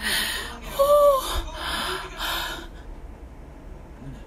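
A woman crying in pain after a nasal swab test: four gasping, sobbing breaths over the first two and a half seconds, with a short high whimper about a second in.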